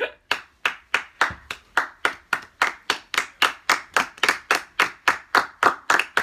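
A small group of people clapping their hands in unison, a steady beat of sharp claps about three to four a second.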